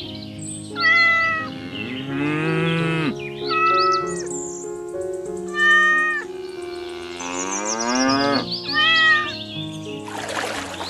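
A cat meowing four times, short high calls, alternating with two longer, lower cow moos that rise in pitch, over background music.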